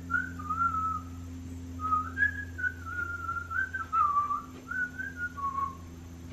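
A man whistling a tune in short phrases of held notes, with a brief pause about a second and a half in, over a faint steady low hum.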